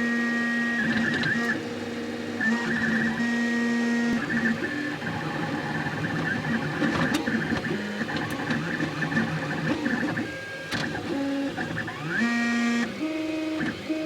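da Vinci 1.0 3D printer's stepper motors driving the print head through a print: a run of whining tones that jump from pitch to pitch and glide up and down as the moves speed up, slow and change direction, with a few light ticks.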